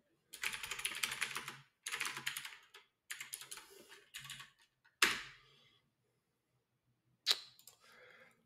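Typing on a computer keyboard in four quick runs of keystrokes, then a single harder keystroke about five seconds in and one sharp click a couple of seconds later.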